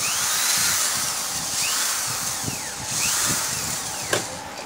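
Cordless drill-driver backing out the screws of a horn-speaker driver unit: two runs of motor whine, the pitch rising and falling as the trigger is worked, with a short pause between them and a click near the end.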